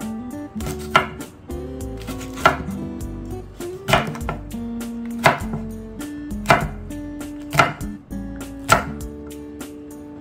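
Chef's knife chopping vegetables on an end-grain wooden cutting board: about seven sharp, separate chops, one every second or so. Soft background music plays underneath.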